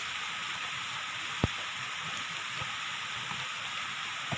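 Steady rush of a waterfall's flowing water, with a sharp knock about a second and a half in and a fainter one near the end.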